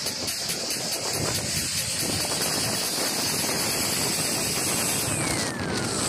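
Sea waves breaking and washing in among shoreline boulders: a steady rushing noise of surf.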